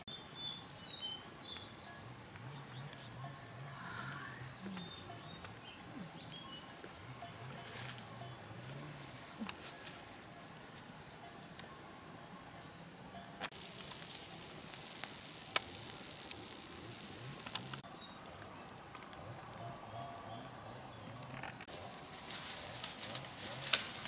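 Forest insects, crickets or cicadas, droning on one steady high-pitched tone. A louder high hiss swells for about four seconds just past the middle, and a run of crackling rustles comes near the end.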